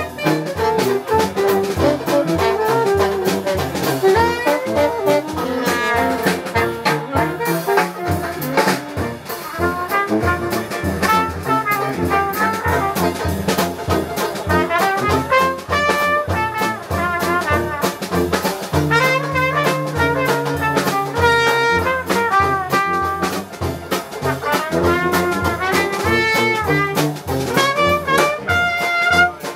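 Live Dixieland jazz band playing: trumpet, saxophone and tuba over a drum kit keeping a steady beat.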